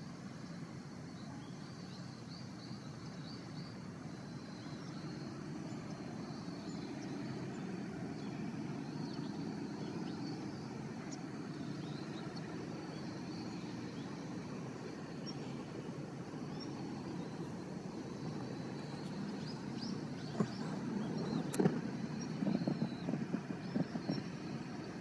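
Steady low drone of a distant engine, swelling slightly over the first several seconds, which the filmer wonders is a powered paraglider's motor. A few knocks and rustles from handling near the end.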